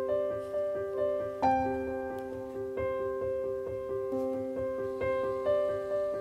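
Slow background piano music: single notes and chords, each struck and then fading away.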